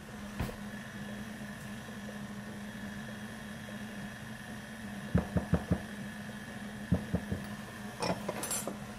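Steady low hum in a kitchen, broken about five seconds in by a quick run of sharp taps and clinks, with a few more near seven and eight seconds, as softened butter is scraped out of a small cup with a utensil into a glass mixing bowl.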